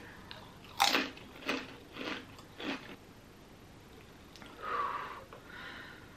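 Crunchy tortilla chip bitten and chewed: four crisp crunches about half a second apart, the first the loudest. A short breathy sound follows near the end.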